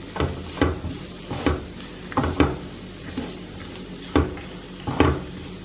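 Wooden spatula stirring and scraping a thick onion-tomato masala around a nonstick kadai in irregular strokes, one or two a second, over a light sizzle of frying. The coriander powder is being fried until its raw taste is cooked off.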